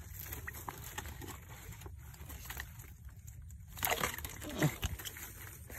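Twigs, branches and grass rustling and crackling as they are brushed and handled, over a low rumble of wind and handling on the microphone, with a short louder noise about four seconds in.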